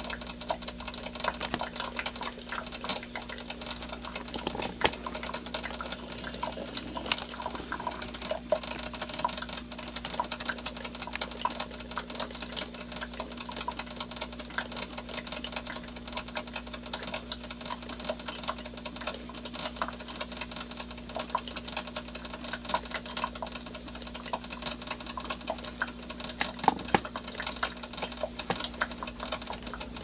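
GE / Black & Decker Spacemaker 10-cup drip coffee maker brewing: rapid, irregular clicking and sputtering pops over a steady hum.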